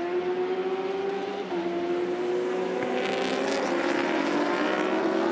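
Endurance-racing superbike engines at high revs, pitch climbing slowly as the bikes accelerate, with a short break about a second and a half in. Several bikes pass close together about three seconds in.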